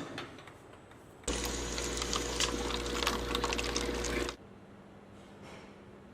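A small electric motor starts suddenly about a second in and runs for about three seconds before cutting off: a steady hum with rapid clicking over it.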